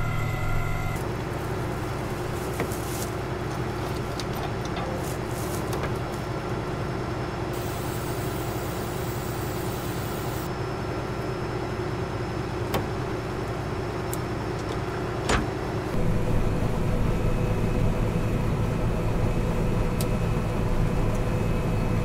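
John Deere combine harvester running with a steady engine drone, with a few sharp clicks in the middle. The drone shifts and gets a little louder about three-quarters through.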